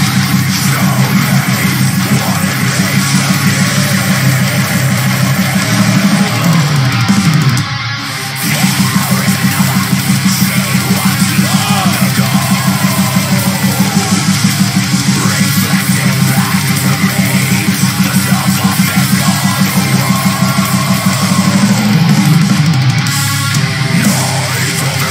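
A heavy metal song plays, with distorted guitars and driving drums in a fast, even pulse. The music drops back briefly about eight seconds in.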